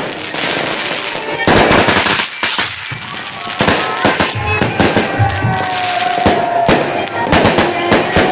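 Fireworks going off in quick succession: repeated sharp bangs and crackles, with a dense rush of hissing about a second and a half in.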